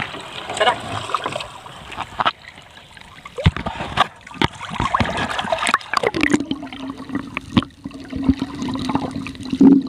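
Seawater splashing and gurgling against a camera as it goes from the surface into the sea, with scattered sharp clicks and knocks. About six seconds in the sound turns muffled, as heard underwater, under a steady low hum.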